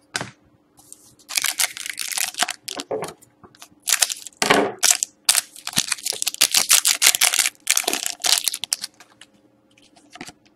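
Foil wrapper of a Panini Select hockey card pack crinkling and crackling in rapid bursts as it is handled and torn open, the cards then slid out.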